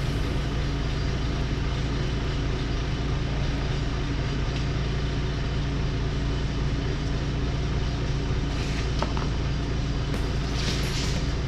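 Diesel engine of a backhoe idling steadily, a constant low hum, with a few brief scuffs on the concrete floor near the end.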